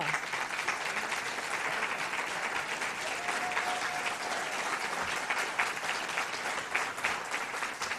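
Audience applauding, a steady patter of many hands clapping that eases off near the end.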